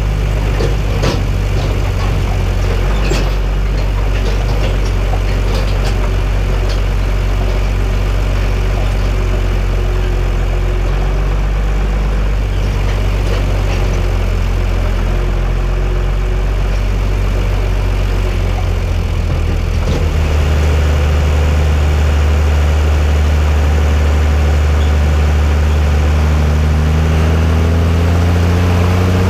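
John Deere 3650 tractor's diesel engine running steadily under load while hauling about 21 tonnes of potatoes. About two-thirds through, the note drops lower and gets a little louder, and near the end the revs climb.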